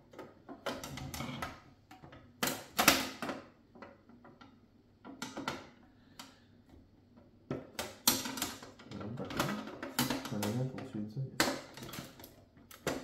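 Irregular clicks and knocks of model-ship hull parts being handled and snapped together, the loudest a little under three seconds in.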